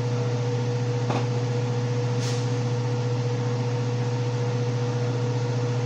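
Steady hum and whir of a stove's range-hood vent fan running, with a constant whine over a low hum. A faint click comes about a second in and a short hiss just after two seconds.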